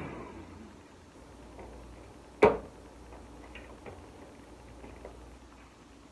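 2000 W upright/handheld vacuum cleaner motor spinning down after being switched off, its whine falling in pitch and fading away in the first moments. A single sharp knock about two and a half seconds in, then near-quiet with faint small clicks.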